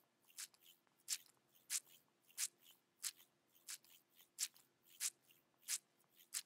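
Foley footsteps: short crisp scuffing steps in a steady walking rhythm, about three loud steps every two seconds with fainter ones in between.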